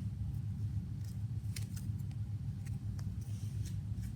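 Trading cards being handled and flipped, with light scattered ticks and rustles, over a steady low hum.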